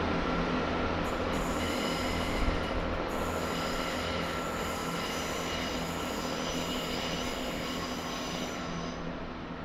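GWR Class 166 diesel multiple unit running into the platform on a curve: steady diesel engine hum, with high wheel squeal from about a second and a half in that fades out near the end.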